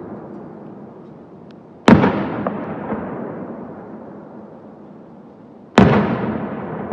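Aerial fireworks booming twice, about four seconds apart, each sharp bang followed by a long rumbling echo that fades away.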